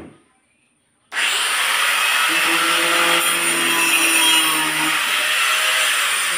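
A power tool running steadily, starting abruptly about a second in.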